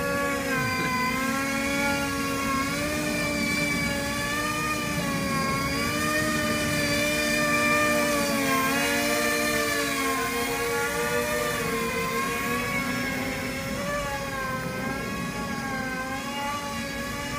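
Trirotor tiltwing drone in flight, its motors and propellers giving a steady buzzing whine whose pitch wavers slowly up and down as the rotors change thrust.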